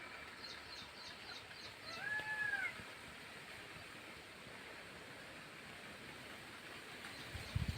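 Rural outdoor ambience with a steady hiss: a quick run of faint high chirps early on, then a single arching call, rising and falling, about two seconds in. Low rumbling thumps come near the end.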